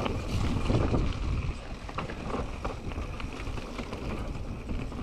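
Wind buffeting the microphone over a low rumble, with scattered light clicks and rattles. It is loudest for the first second and a half, then settles lower.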